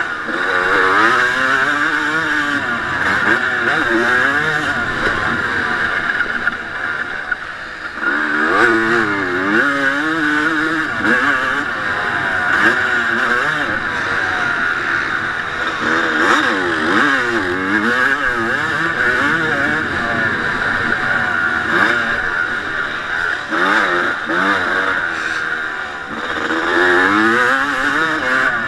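1989 Honda CR250's single-cylinder two-stroke engine, heard from onboard the bike, revving up and falling back again and again as the rider works the throttle and gears around a motocross track. It eases off briefly about seven seconds in, then pulls hard again.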